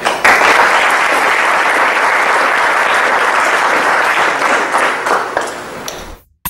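Audience applauding: many hands clapping steadily at the end of a talk, dying away after about five seconds.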